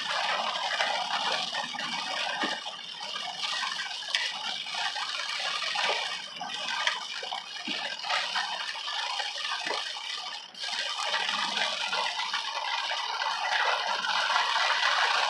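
Rain falling on a car, heard from inside the cabin as a steady, dense patter.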